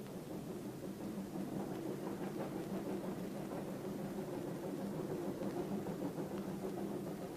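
Moving train heard from inside a carriage: a steady running rumble with a fine rattle, swelling during the first second and then holding even.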